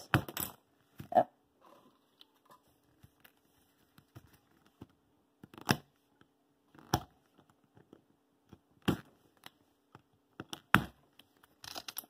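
Plastic centre caps of an MF3RS3M speedcube being pried off the core with a small tool: a handful of short, sharp plastic clicks and snaps, spaced a second or two apart.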